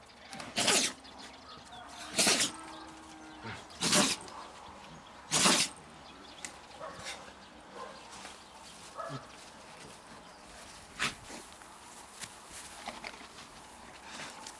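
A dog sneezing four times, about a second and a half apart, each sneeze short and sharp. Fainter scattered clicks follow.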